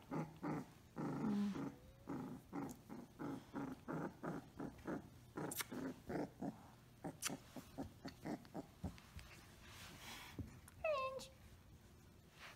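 Samoyed puppy growling in short repeated bursts, two or three a second, during rough play, with a short high falling whine near the end.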